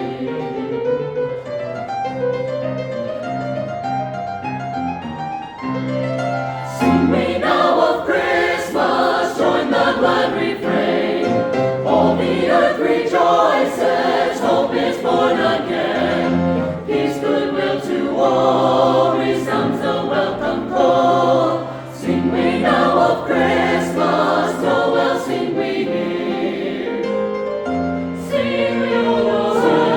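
Choir singing in parts, quieter at first and fuller and louder from about seven seconds in.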